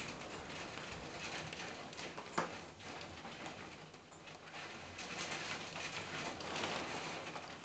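Thunderstorm rain falling steadily, with one sharp tap about two and a half seconds in, and a pigeon cooing close by.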